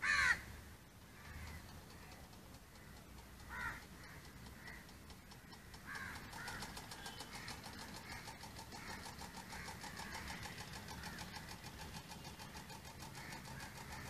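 A 350 W electric kayak motor turning a 9-inch model aircraft propeller, heard from the shore: a steady, high-pitched whine with a fast flutter that comes up about six seconds in. A crow caws loudly at the very start and once more a few seconds later.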